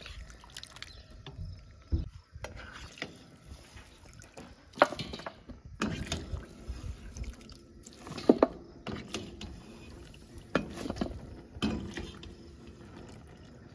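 Water sloshing and dripping as blanched broccoli is stirred and lifted out of a steel pot with a plastic slotted spoon into a steel bowl, with about six sharp knocks and splashes against the metal.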